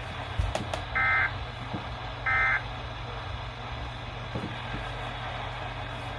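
Two short bursts of SAME digital data tones from a Weatheradio Canada alert broadcast, about a second apart, over steady radio hiss and hum. They are the brief end-of-message bursts that close a weather bulletin.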